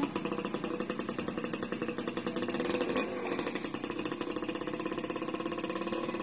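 A small engine running steadily with a rapid, even pulse, turning smoother and steadier about halfway through.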